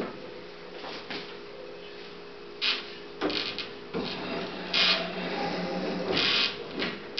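Wooden screen-printing frames sliding and scraping along the wooden shelves of a rack, a string of short scrapes and knocks with a longer drawn-out scrape in the second half.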